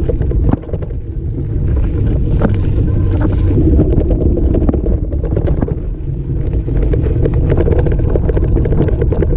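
Riding a bike down a rough gravel track: a steady rumble of wind buffeting the microphone and tyres over stones, with many sharp rattles and knocks as the bike jolts over the loose rock.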